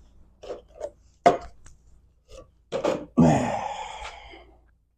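Manual transmission case being shifted and laid over on a work surface: a few knocks and clunks, then a loud clunk about three seconds in followed by about a second of scraping.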